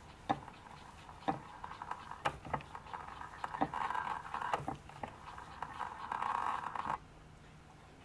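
Fine twist drill cutting into the end of brass bushing wire in a small lathe, drilling out a new clock bush: irregular sharp clicks and scratchy scraping, with two louder, denser stretches of cutting about four and six seconds in. It stops abruptly near the end.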